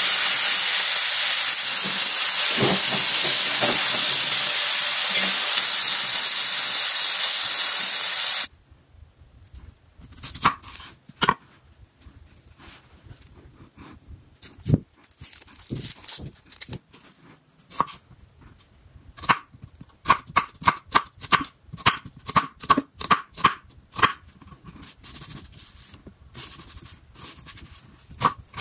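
Chicken breast sizzling loudly in hot oil in a frying pan, cut off abruptly about a third of the way in. Then a knife cutting a red onion on a wooden board: a few scattered cuts, then quick, even chopping at about three strokes a second, and again near the end.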